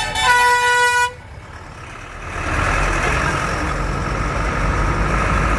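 A vehicle horn blares for about a second, then cuts off. From about two seconds in, a steady engine rumble and road noise build up and hold.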